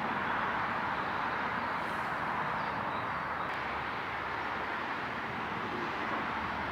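Steady outdoor background noise: an even rush at a constant level, with no distinct events.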